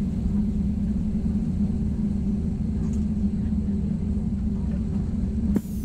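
Steady low rumble of an Airbus A320's jet engines and airframe at taxi power, heard from inside the cabin, with a low hum running under it. A sharp click comes near the end.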